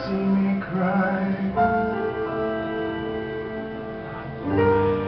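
Recorded pop-rock piano ballad: a male singer finishes a sung line in about the first second and a half, then held chords ring on. A louder, fuller chord comes in near the end.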